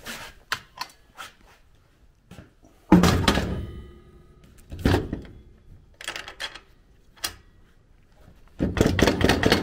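Steel tow dolly frame being set down onto a steel diamond-plate truck bed and latched into its newly welded mount. A heavy metal clunk about three seconds in rings briefly, a second knock comes near five seconds, and a clattering of metal parts runs near the end, with small clicks between.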